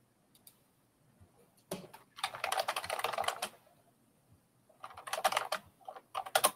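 Computer keyboard typing in quick runs of keystrokes: one long run of about a second and a half, then two shorter runs near the end.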